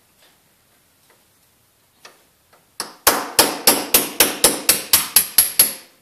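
Small hammer tapping rapidly on a metal part held against a steel vise, about four to five sharp metallic knocks a second, starting a little under halfway in. The taps are driving the remaining glass stub of a broken light guide out of its housing, whose glue has been softened by heating.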